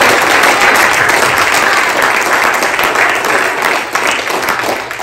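Congregation applauding, a dense, loud clapping that holds steady and begins to die down near the end.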